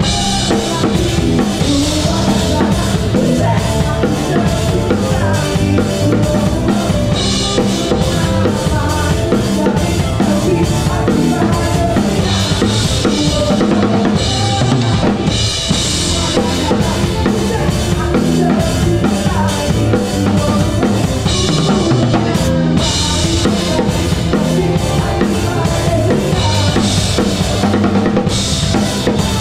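Drum kit played live, close up: a driving kick-and-snare groove with cymbal washes swelling in and out several times, over the band's bass and other pitched instruments.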